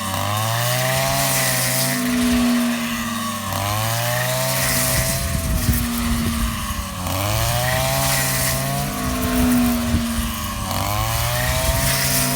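Rice harvester's engine running steadily, its pitch dipping sharply and recovering about every three and a half seconds.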